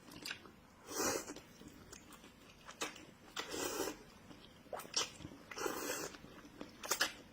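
Close-miked eating sounds: a person slurping and sucking at food in short bursts every second or two, with sharp clicks and crunches between them.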